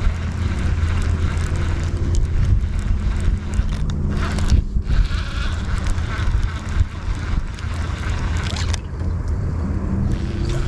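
Strong gusting wind buffeting the microphone: a steady low rumble with a hiss over it that briefly drops out a couple of times.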